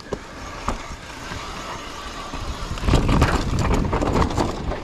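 Downhill mountain bike riding over rock and rough dirt: tyres rumbling and the bike rattling with many small knocks over the bumps. It gets louder about three seconds in.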